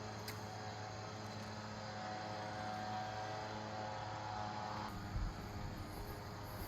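An engine running at a steady speed, a constant low hum, with a few low bumps about five seconds in.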